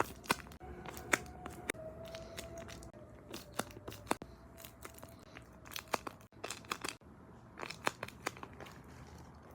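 Paper squishies, made of taped paper, crinkling and crackling as they are squeezed and handled, in irregular sharp bursts.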